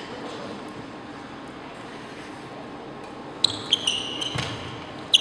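Low murmur of a sports hall, then, from about three and a half seconds in, several short, sharp squeaks of court shoes on the wooden floor as the players move, with a sharp click right at the end.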